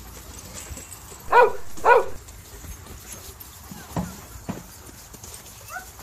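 A German Shepherd barks twice in quick succession, about a second and a half in, over steady background noise. Two short soft knocks follow a couple of seconds later.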